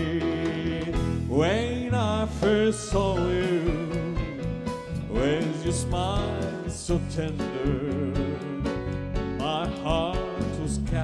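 Background music: a slow song whose melody is held in long, wavering notes over a steady accompaniment.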